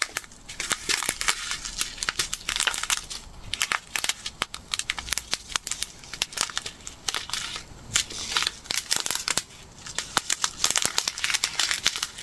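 Small plastic bags of square resin diamond-painting drills being handled, crinkling, with many quick clicks from the bags and drills.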